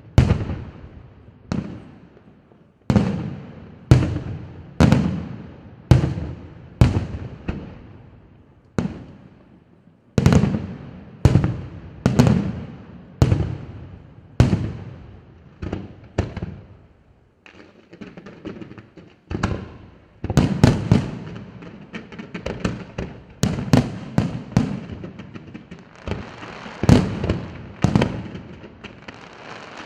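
Aerial fireworks shells bursting one after another, about one bang a second, each fading away. After a short lull past the middle, the bursts come faster and overlap in a denser volley.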